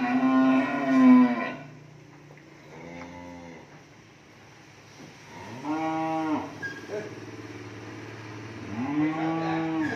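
Cattle mooing four times: a long, loud call at the start, a fainter short one about three seconds in, and two more around six and nine seconds, each rising and then falling in pitch.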